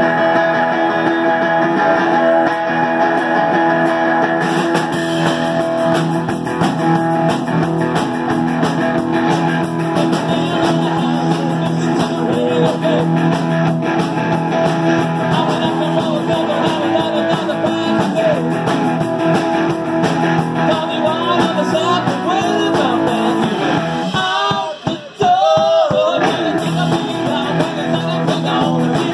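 Live rockabilly band playing: electric guitars and bass under a male lead vocal. About 25 seconds in, the band cuts out for a moment, leaving the voice alone, then comes back in.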